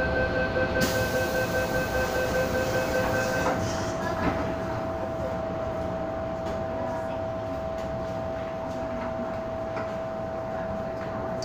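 MTR M-Train passenger doors closing: the electronic door-closing warning tone sounds for about three and a half seconds while the doors slide, and they shut with a knock about four seconds in. A steady hum from the standing train follows.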